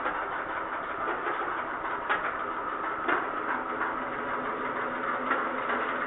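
Washing machine tub spinning in its spin cycle, belt-driven by a pedalled exercise bike: a steady mechanical whir with a few light clicks.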